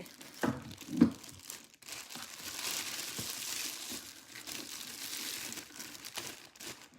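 Packaging crinkling and rustling as a large item is unwrapped by hand, with a couple of handling knocks about a second in.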